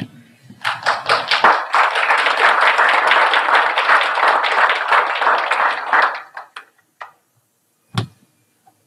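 Audience applauding: many hands clapping for about five and a half seconds, then dying away to a few last claps. A single thump comes near the end.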